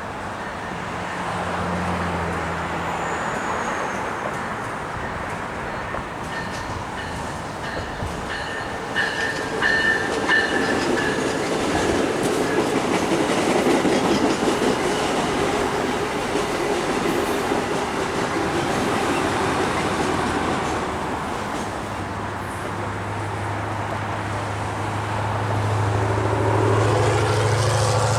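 A train running past on the tracks, its wheels and cars making a continuous rumble that is loudest in the middle. Toward the end a steady low engine hum comes in and grows louder.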